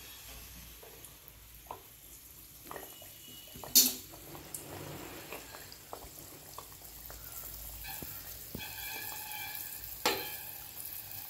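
A disc of adhirasam dough (rice flour and jaggery) deep-frying in hot oil just after going in: a steady sizzle with small scattered crackles. Two sharp clicks stand out, one about four seconds in and one near the end.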